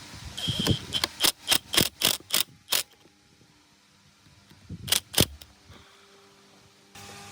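Workshop clicks or knocks, like hand tools or metal parts being handled: a quick run of about eight sharp strikes, then two more a couple of seconds later.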